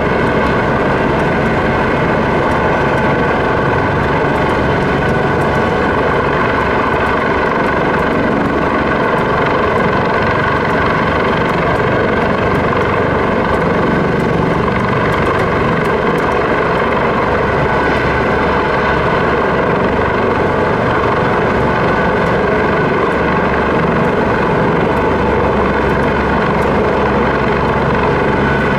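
Airbus AS365 Dauphin helicopter hovering overhead with a load on a long line, running steadily: a constant rotor and turbine noise with several steady whining tones over it.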